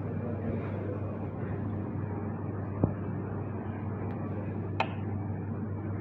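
Steady low mechanical hum with an even background rush, broken by two sharp clicks, one near the middle and one about two seconds later.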